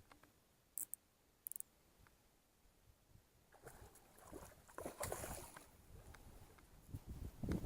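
Quiet at first with two very short high-pitched ticks, then irregular rustling and handling noise from about three and a half seconds in.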